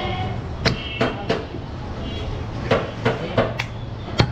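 Heavy butcher's knife chopping goat meat on a wooden log chopping block: a string of sharp, irregular chops, the loudest near the end.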